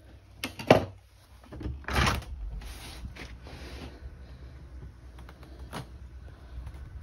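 A UPVC door being opened: sharp clicks of the handle and latch under a second in, then a rush of noise around two seconds in that fades to a softer hiss, and one more click near the end.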